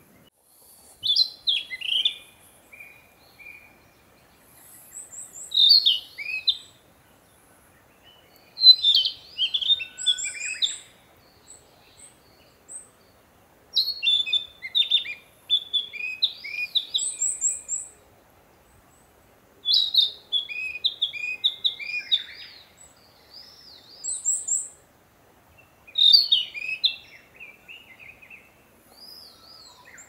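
Male narcissus flycatcher singing its territorial song: a series of short, varied whistled phrases a few seconds apart, several of them topped with thin high notes.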